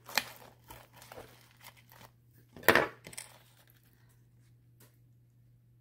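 Table knife sawing through a sandwich on a crisp toasted bun, giving a string of short crackling, crunching strokes, with one louder crunch about two and a half seconds in.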